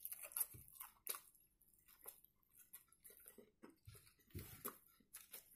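Faint mouth sounds of a man chewing a bite of smoked sausage: soft scattered wet clicks, a few slightly louder near the start and again about four seconds in.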